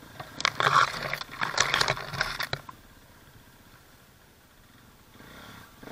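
Leafy branches scraping and rustling against the dirt bike and its camera as it pushes through brush: about two seconds of loud, irregular scratching, which then dies down.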